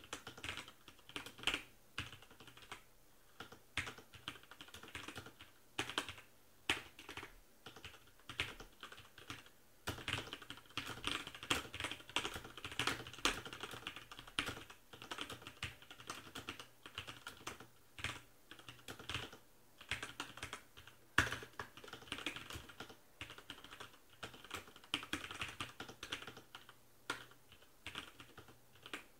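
Ozone Strike mechanical keyboard being typed on at ordinary speed: an irregular, continuous run of key clacks, with one noticeably louder strike about two-thirds of the way through.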